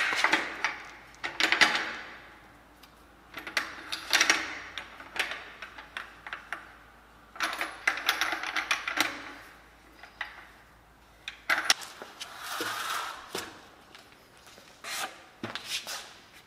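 Metal parts of a BMX bike clicking and clattering as it is put together by hand: wheels and fork handled and fitted. The sound comes in bouts of rapid clicks and knocks a few seconds apart, with quiet gaps between.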